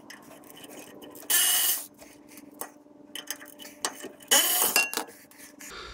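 Hand tools working on a truck's rear drum brake wheel cylinder: scattered metal clicks and ticks, with two short louder scraping noises, one about a second and a half in and one about four and a half seconds in. A faint steady hum runs underneath.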